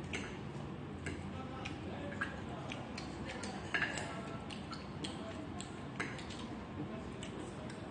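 A metal fork tapping and scraping on a porcelain plate while cutting up tteokbokki: irregular light clicks throughout, the loudest a little under four seconds in.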